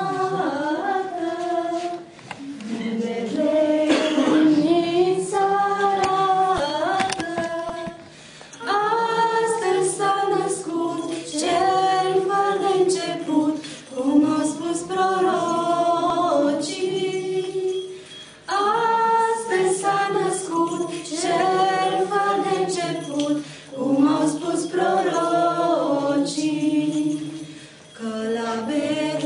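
A group of young women singing a Christmas carol unaccompanied, phrase by phrase, with brief pauses for breath.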